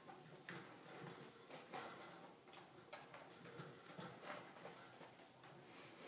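Faint, irregular taps and scratches of pet rats' claws moving over a wire cage and a wooden floor.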